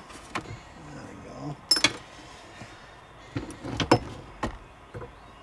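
Jet ski carburetor set knocking and scraping against the engine compartment as it is wrestled loose and pulled out: a few sharp clunks, the loudest just under two seconds in and a cluster around four seconds.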